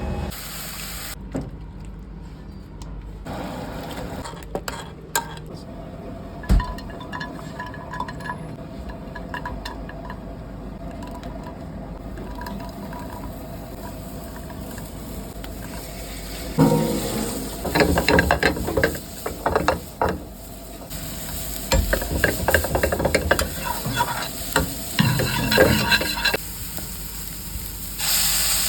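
Food sizzling in a pan while it is stirred, with a utensil scraping and clinking against the pan; the clatter comes thick and fast through much of the second half.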